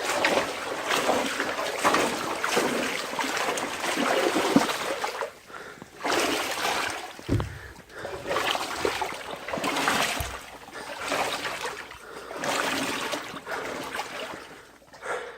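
Standing water sloshing and splashing in repeated surges as someone crawls through a flooded crawl space, with a couple of brief low thuds.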